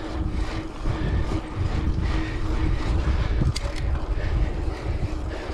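Wind buffeting the microphone of a handlebar-mounted action camera on a road bike, a rumbling, gusty noise, with a faint steady hum and a couple of light clicks about three and a half seconds in.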